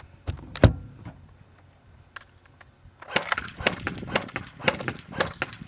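Echo1 P90 airsoft electric gun firing on semi-automatic. A few single shots, then from about three seconds in a quick string of shots, three or four a second.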